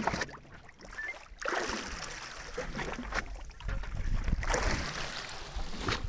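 Sea water sloshing against a boat's hull, with wind buffeting the microphone. It is quieter for the first second or so, then louder and steady.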